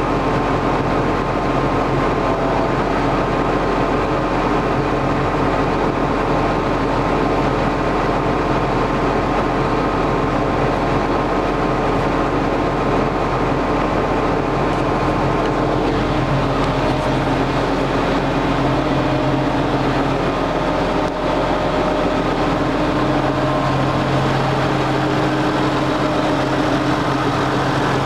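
John Deere 7920 tractor's six-cylinder diesel engine running steadily.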